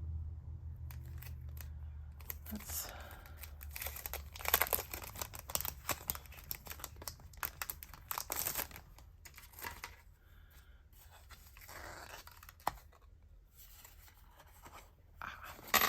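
Paper packaging being handled by hand, rustling and crinkling in irregular bursts, with louder ripping sounds about four and eight seconds in.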